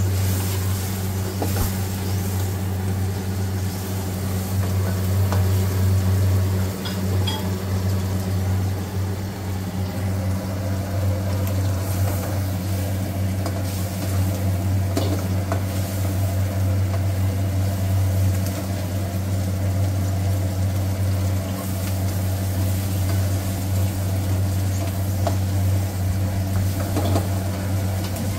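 Fried rice being stir-fried in a wok: sizzling and scattered metal clinks of the spatula against the wok over a steady low hum.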